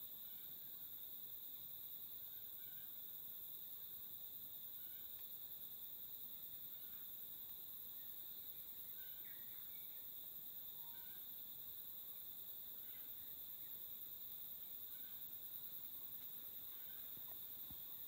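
Steady high-pitched insect chorus from the forest, droning without a break, with a few faint short bird chirps scattered through it.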